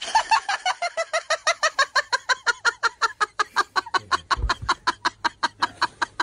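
A chicken clucking rapidly and evenly, about six or seven short clucks a second, without a break.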